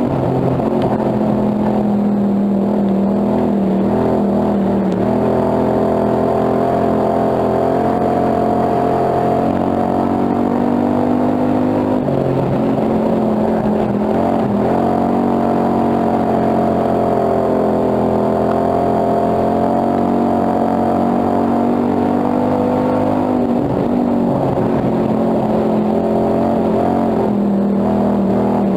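Dirt-track hobby stock race car's engine heard from inside the cockpit at racing speed, running hard and loud. Its pitch falls and climbs again several times as the car laps the oval.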